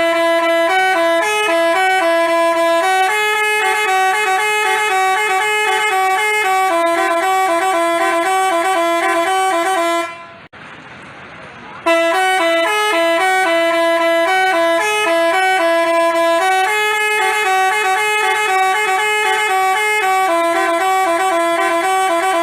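Basuri telolet bus horn playing a tune of stepped, held horn notes. It stops about ten seconds in, leaving a brief hiss, then plays the same tune again.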